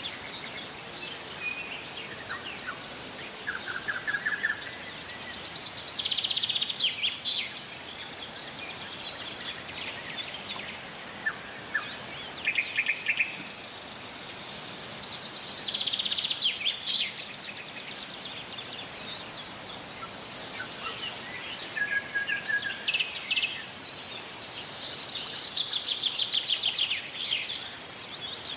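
Songbirds singing over a steady background hiss: scattered chirps and short whistled notes, with a louder trilled phrase repeating about every nine to ten seconds.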